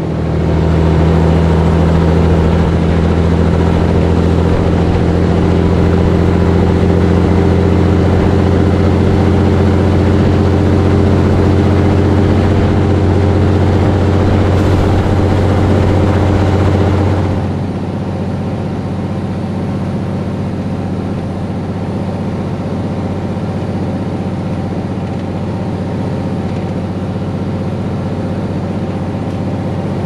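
Diesel semi truck running at steady highway speed: a deep, even engine drone over tyre and road noise. A little over halfway through, the drone drops and the sound gets quieter and thinner, staying steady to the end.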